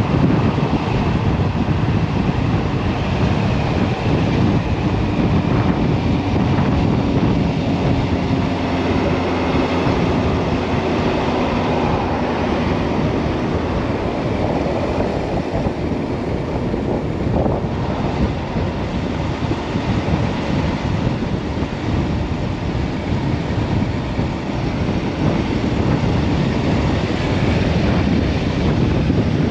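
On-board sound of a Kawasaki Ninja H2 SX, its supercharged inline-four running steadily at highway cruising speed under heavy wind noise on the microphone from a gusty crosswind.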